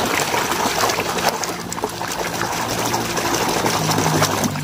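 Water splashing and sloshing continuously as a hand swishes a muddy plastic toy excavator back and forth under the surface, washing the mud off.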